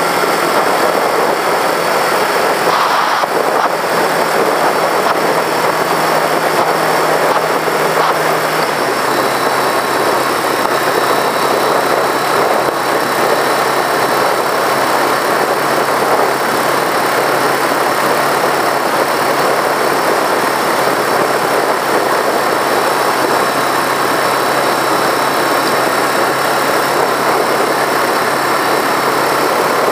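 1982 Yamaha XJ650's air-cooled inline-four engine running steadily at highway cruising speed, mixed with heavy wind and road rush. The engine note drops slightly about nine seconds in.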